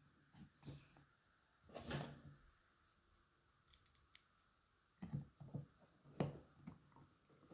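Quiet handling of a small plastic spirit level and a precision screwdriver on a wooden board: scattered soft knocks and light clicks, one louder knock about two seconds in. In the second half the screwdriver tip is worked into the level's small screws, with a cluster of clicks and scrapes, the sharpest a little after six seconds.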